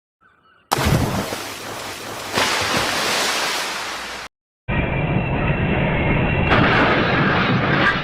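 Loud, rumbling blast and crash noise that starts suddenly under a second in. It breaks off abruptly a little past halfway and resumes moments later sounding duller, like spliced explosion or crash sound effects.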